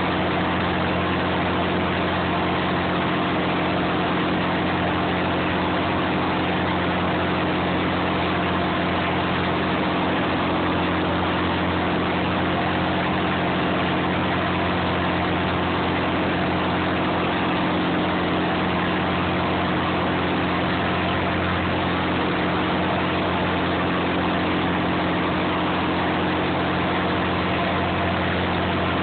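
Clam boat's engine running steadily: a constant, loud drone with a low pitched hum under a wash of mechanical noise, unchanging throughout.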